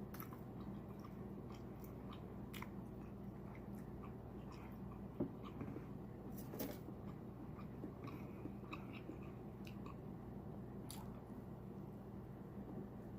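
A person chewing and smacking while eating seafood, with scattered small clicks and one sharper knock about five seconds in.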